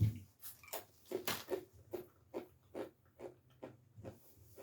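Close-up chewing of crisp chef salad, a steady run of crunches about two to three a second.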